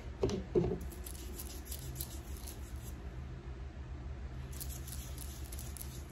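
Hands rubbing body shimmer oil into the skin of the arm: faint, quick, scratchy rubbing in two spells, with two brief louder sounds just after the start, over a steady low hum.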